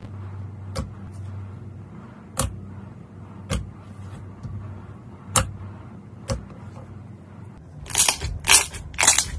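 Fingers poking and squeezing strawberry slime: five sharp, separate pops as the slime is pressed and released, then a quicker run of louder squelching bursts near the end as fluffy slime is squeezed.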